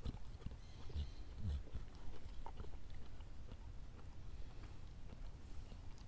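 A dog licking honey off a metal spoon: faint, irregular wet licks and smacks.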